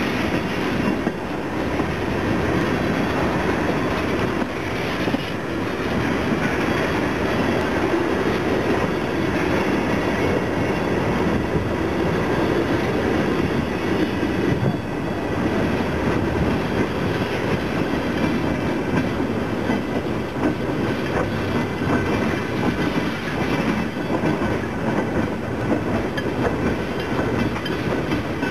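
Freight train of tank cars rolling past close by: a steady rumble of steel wheels on the rails, with clacks as the trucks cross the rail joints.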